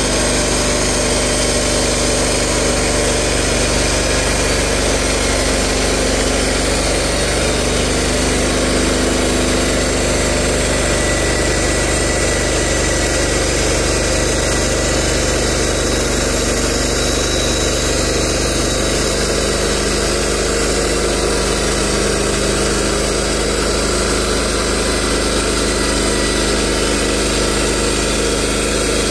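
Gasoline-engined portable band sawmill running steadily, its band blade sawing lengthwise through a tulip poplar log as the head travels along it.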